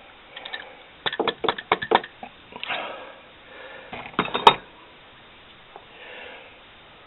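A quick run of sharp clicks and knocks about a second in, then a single breathy puff, and more clicks ending in one louder sharp knock past halfway: handling noise, with a faint breath near the end.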